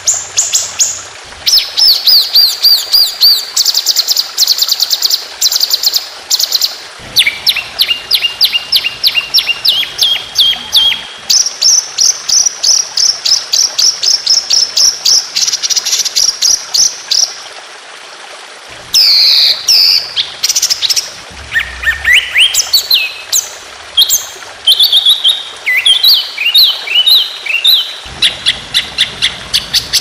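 A songbird singing long, fast trills of rapidly repeated notes. Each run holds one pitch for a few seconds, then jumps to another, with a short break a little past halfway.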